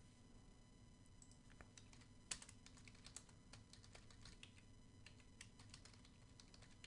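Faint typing on a computer keyboard: scattered, uneven keystrokes, with one louder tap about two seconds in.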